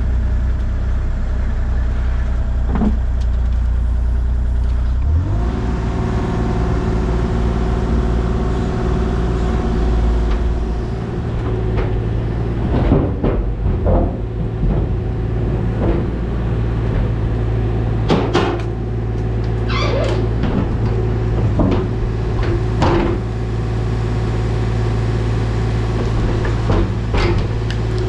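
Heavy machine engine running steadily, picking up to a higher, harder-working pitch about five seconds in, with scattered metallic knocks and scrapes from the work on the buried oil tank.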